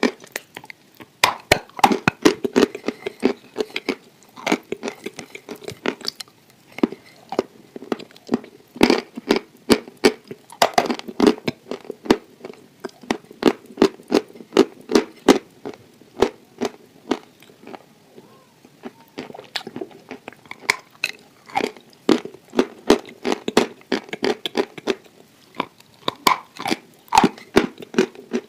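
Close-miked chewing of a crumbly, crunchy food: a steady run of crisp crunches and mouth sounds, with a few brief lulls.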